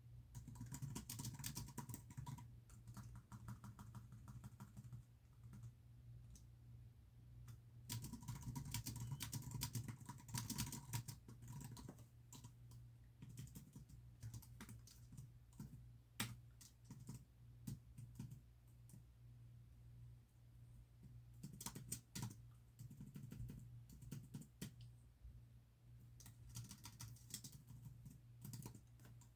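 Computer keyboard typing in quick runs of clicking keystrokes, broken by pauses, over a steady low hum.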